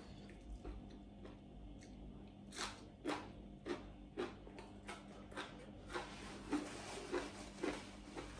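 A mouthful of young jackfruit salad being chewed close to the microphone, a steady rhythm of about two chews a second that starts a few seconds in.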